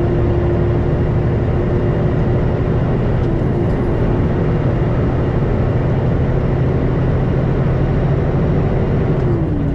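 Semi-truck diesel engine and road noise heard from inside the cab while cruising, steady, with a thin whine that drops a little in pitch near the end.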